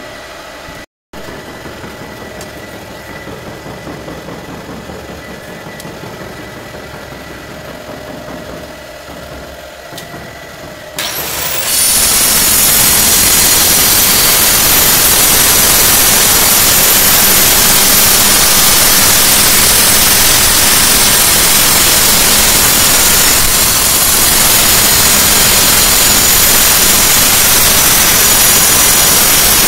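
Hand-held electric tile cutter with its disc cutting through a floor tile, a loud steady grinding run that starts abruptly about eleven seconds in.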